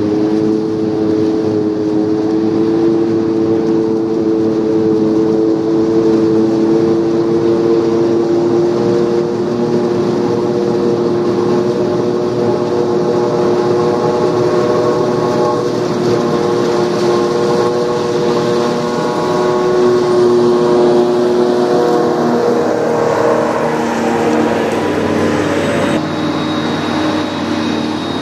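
Claas Jaguar 850 forage harvester running under load while chopping standing maize: a loud, steady drone with a strong whine, and a tractor running alongside. The pitch shifts and the sound grows noisier about three-quarters of the way through.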